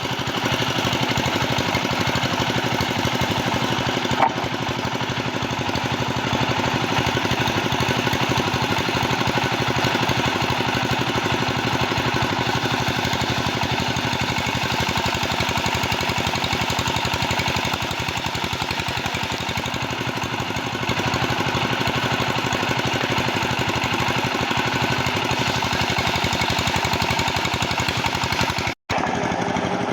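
Sawmill machinery running steadily with a fast, rattling, engine-like pulse. It cuts out for an instant near the end.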